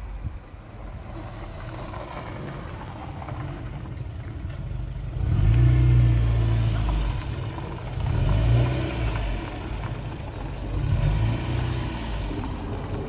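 A car engine running and swelling up in loudness three times, about five, eight and eleven seconds in.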